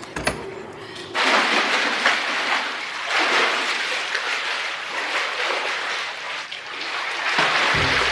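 A click, then from about a second in a loud, steady rush of running water. Music comes in near the end.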